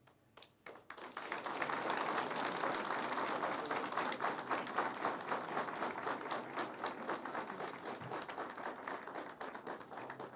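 Audience applauding: a few scattered claps that build within about a second into dense, sustained clapping, which thins out near the end.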